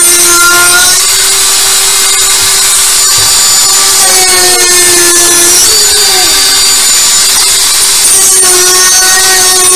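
Dremel rotary tool fitted with a drum sander, running loud and high-pitched as it grinds a groove into a PVC pipe fitting, with a hiss of abrading plastic; the motor's pitch sags briefly mid-way as the drum bears into the plastic.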